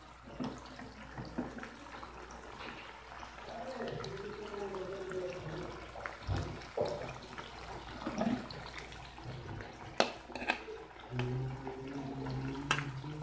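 Sardines and onions simmering and bubbling in broth in a wok, stirred with a metal ladle. A few sharp clinks of metal utensils come near the end.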